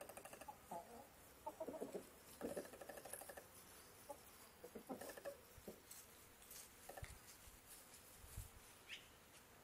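Chickens clucking faintly in short, scattered clucks.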